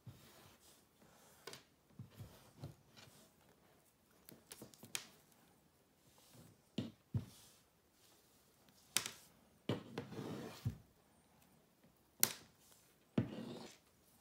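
Light handling sounds of twine being whipped round a net's lead line with a plastic netting needle: sharp clicks and taps at irregular gaps, and soft rustling of the twine and rope, louder about ten seconds in and again near the end.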